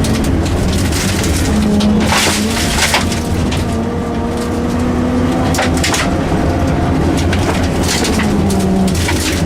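Rally car engine running hard on a stage, its pitch rising and falling with the throttle and gear changes. Short bursts of hissing noise come twice, about two seconds in and again near the middle.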